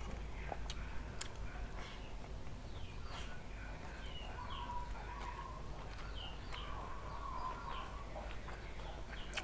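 Close mouth sounds of someone eating fried noodles and fried rice by hand: chewing with sharp lip-smacking clicks. Birds chirp in the background, busiest in the middle.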